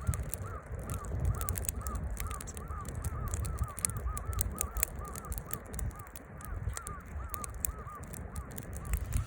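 Firewood burning in a fire grill, crackling with many sharp pops over a low rumble. Behind it, a short high chirp repeats steadily, about two to three times a second.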